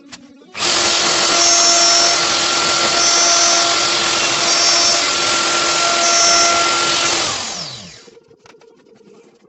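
An electric motor, a power tool or a vacuum cleaner, switched on and running at full speed with a steady whine for about seven seconds. It is then switched off and spins down over about a second.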